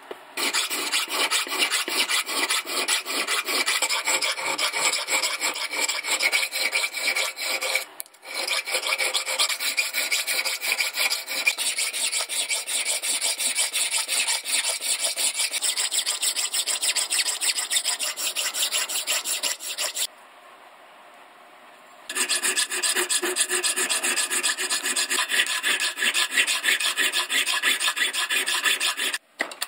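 Hand file stroked back and forth across a steel axe head clamped in a vise, a steady run of rasping strokes as the head is reshaped. It breaks off briefly about eight seconds in and stops for about two seconds around twenty seconds in.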